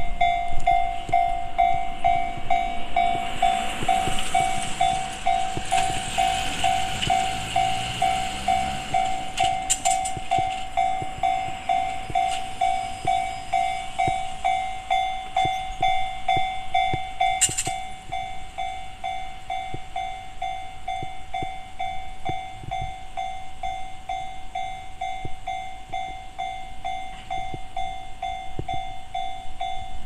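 Japanese railway level-crossing alarm ringing its repeated electronic bell tone, about two strokes a second. It starts abruptly and continues evenly, a little quieter in the second half. A vehicle passes between about 3 and 9 seconds in.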